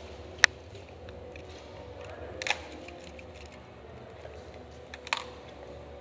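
A few isolated sharp cracks of airsoft fire in a large hall: one about half a second in, one around two and a half seconds, one about five seconds in. A steady low hum lies underneath.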